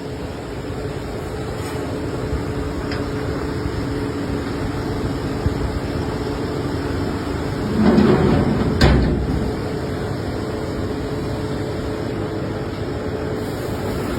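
Servo-controlled U-drilling machine running, with a steady hum and hiss. It swells louder about eight seconds in, followed by a sharp knock.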